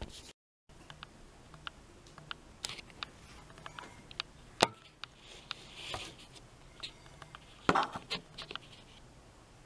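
Occasional light clicks and knocks of tableware and decorations being handled and set down on a table, the loudest about four and a half seconds in, over quiet room tone.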